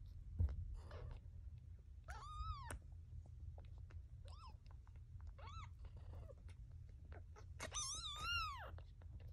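Newborn kitten crying: a series of high-pitched, arching mews, the longest and loudest near the end. A brief bump sounds just after the start.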